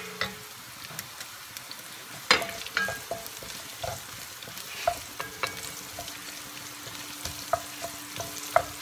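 Chopped red onion and garlic sizzling in hot oil in an enamel-lined pot, stirred with a wooden spatula that scrapes and knocks against the pot every half second to a second, the loudest knock a little over two seconds in.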